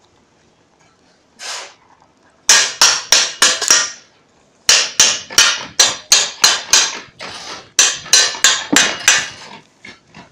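Quick, sharp strokes of a hand tool on a freshly laid cement floor as a grooved pattern is stamped into the surface, in three runs of about four strokes a second.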